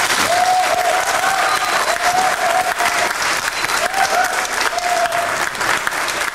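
Audience applauding at the end of a karate kata, with a voice calling out several times over the clapping.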